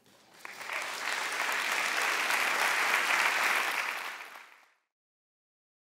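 Audience applauding: it builds over the first second, holds steady, then fades out about four and a half seconds in.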